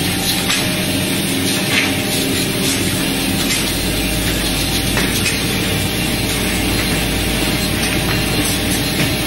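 Plywood veneer paving line running: a steady mechanical rumble and rattle, with a few light knocks as wooden veneer strips are handled. A deeper hum comes in about three and a half seconds in.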